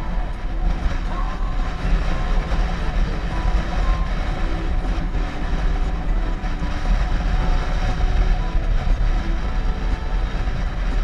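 Motorcycle riding at steady speed on a paved road: a continuous low rumble of engine, tyres and wind, heard from a camera mounted on the bike.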